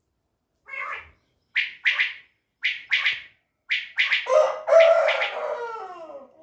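Caged quail calling: short sharp notes given in quick pairs, about four times, followed near the end by a longer, louder sound falling in pitch.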